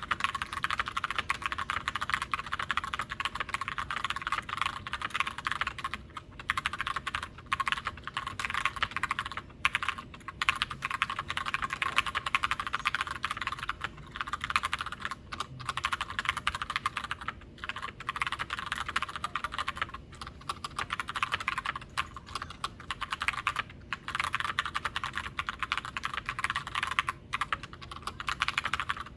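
Continuous fast typing on a Glorious GMMK White Ice TKL mechanical keyboard with tactile Gateron Brown switches: a dense run of key clacks broken by a few brief pauses.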